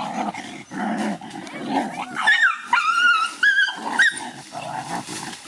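Dogs growling in low, rough bursts, with a run of high, wavering yelps and whines from about two to four seconds in, then more growling near the end.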